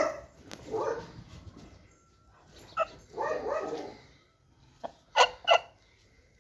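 A dog barking several times, ending with two sharp barks in quick succession.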